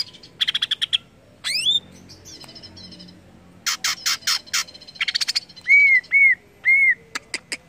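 Green leafbird (cucak ijo) singing a varied song of quick high chirps, sweeps and trills. About six seconds in come three arched whistled notes, followed by a few sharp ticks near the end.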